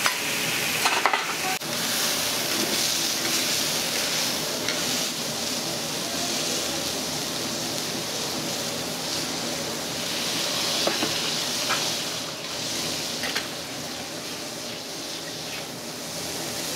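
Beef steak and a bubbling pool of liquid sizzling steadily on a hot flat iron griddle (teppan). A few sharp clicks and scrapes of metal utensils on the iron plate come about a second in and again near the end.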